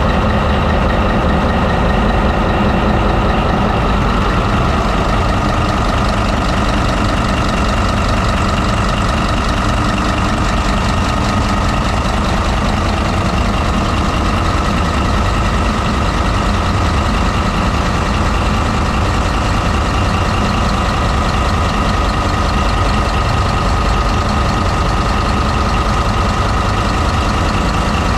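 MTU Friedrichshafen 20V4000 twenty-cylinder V diesel prime mover running steadily, heard close up inside the locomotive's engine room: a loud, even rumble with a steady whine over it.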